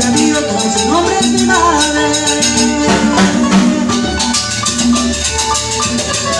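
Small live Latin band playing an instrumental passage: violin, acoustic guitar, keyboard and congas with a steady percussion rhythm.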